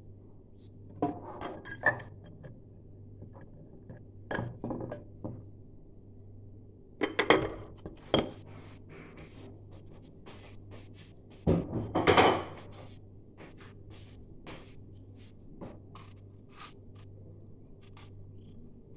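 Dishes and cutlery clattering and clinking in several short bursts, the loudest about seven and twelve seconds in, then lighter scattered taps. A steady low hum runs underneath.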